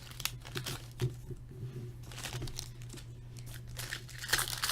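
Crinkling and rustling of trading card packaging as cards are handled, in short irregular rustles that grow busier near the end.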